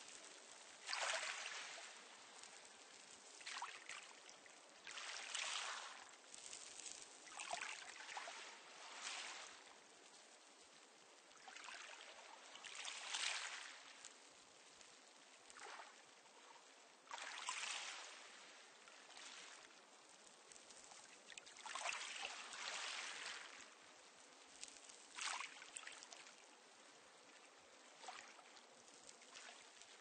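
Small, calm sea waves washing in and out on a pebble beach, each wave a brief swell of hiss and crackle, arriving every few seconds.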